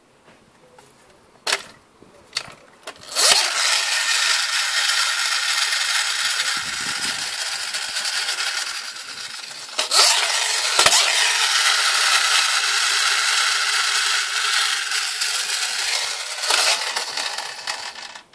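Friction motor of a vintage Taiyo tin Coca-Cola truck toy whirring loudly with a rattling grind as its wheels are spun up, preceded by a few light clicks. The whir runs for about seven seconds, is broken by a sharp click, then starts again for about seven more before dying away near the end.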